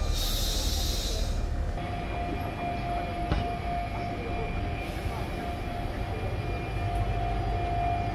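RER B electric train (MI79/MI84 stock) moving along the platform, with a low rumble throughout. A hiss is heard for the first couple of seconds, then a steady whine from the traction motors.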